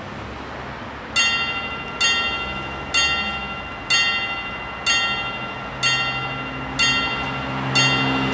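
Level-crossing warning bells starting to ring about a second in: single metallic strikes, roughly one a second, each ringing out and fading before the next, as the crossing activates to warn of an approaching train.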